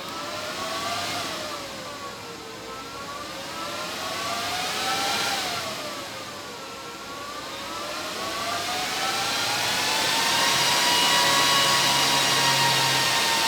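A whirring machine whine with several overtones over a hiss, its pitch sliding slowly up and down twice, then holding steady and growing louder in the last few seconds.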